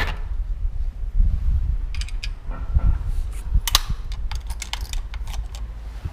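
Door lock and key being worked: scattered metallic clicks and rattles of a key in the lock and the handle turning as the door is unlocked and opened, over a low rumble.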